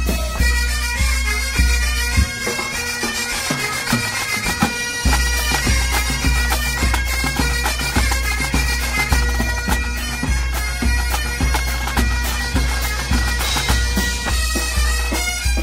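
Breton bagad music: bagpipes and bombardes playing a dance tune over a steady low drum beat. The drum beat drops out about two seconds in and comes back about five seconds in.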